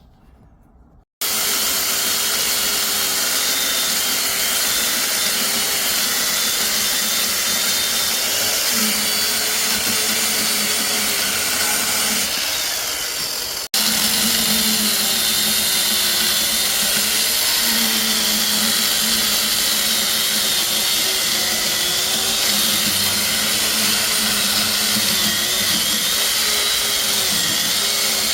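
A motor-driven power tool starts suddenly about a second in and runs loud and steady. Its motor hum wavers and dips slightly, as if under changing load, with a brief dropout about halfway through.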